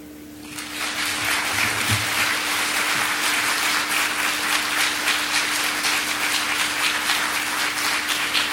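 Audience applauding. The clapping swells in about half a second in, then holds steady.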